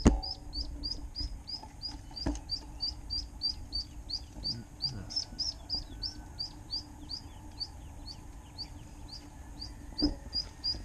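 A steady run of short, high chirps repeated evenly about three times a second from an unseen small animal, with a few sharp knocks at the start, about two seconds in and near the end.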